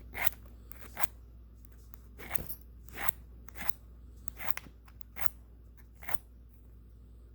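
Chainsaw file scraping across a steel nail to shape a lock pick tip, in about ten short, uneven strokes.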